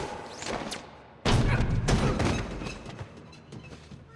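A sudden loud crash about a second in, then a second hit and a fading noisy tail, with music underneath.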